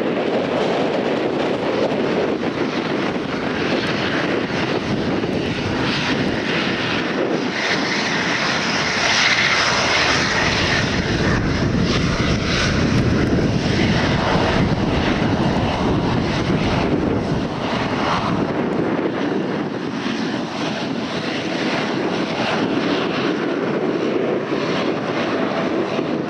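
Airliner's engines passing close, a loud continuous rush of engine noise that swells to its loudest about ten seconds in, with a deep rumble following before it eases.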